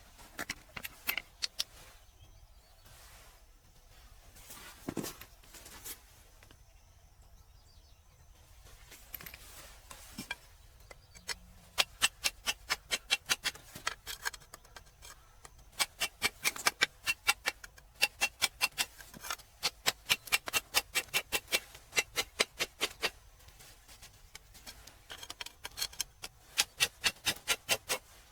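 Rapid series of sharp taps or clicks, about four a second, coming in runs with brief pauses; a few scattered taps come first, and the runs set in about a third of the way in.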